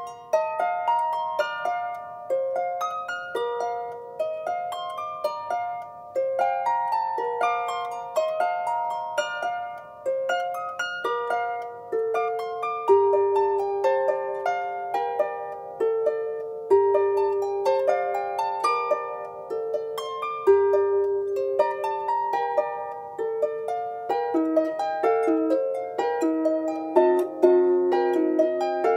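Background music: a plucked-string tune, notes picked out one after another and left to ring, with a low note sounding three times in the middle and the melody dropping lower near the end.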